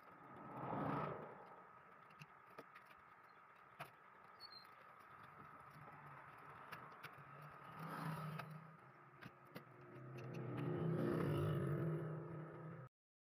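Sparse light clicks and small knocks of hands handling PC case parts, over a faint background. A low rumble swells and fades about a second in, and again, longer and louder, near the end, and then the sound cuts off suddenly.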